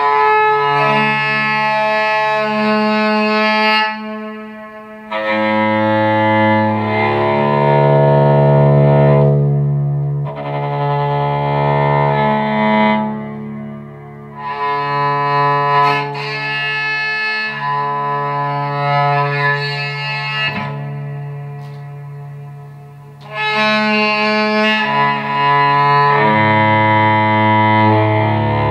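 Electric cello bowed, playing slow, sustained notes in phrases, each phrase broken by a brief dip or pause.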